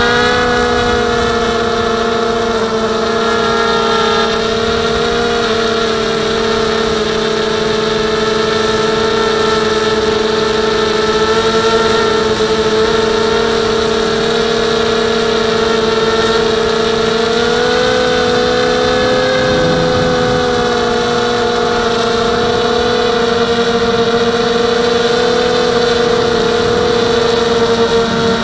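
Blade 200QX quadcopter's brushless motors and propellers humming steadily in flight, heard close up from a camera mounted on its frame. The pitch rises briefly about two thirds of the way through as the throttle changes, then settles back.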